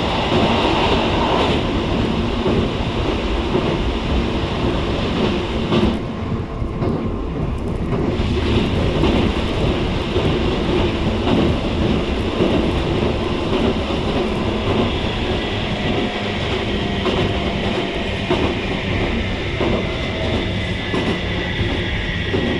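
Running noise inside a JR East 719-series electric train car at speed: a steady rumble of wheels and running gear with scattered clicks of the wheels over rail joints. This unit is known for an unusual running noise.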